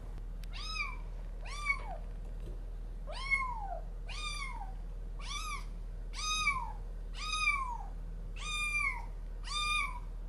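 A kitten mewing over and over: about nine high-pitched mews roughly a second apart, each rising then falling in pitch.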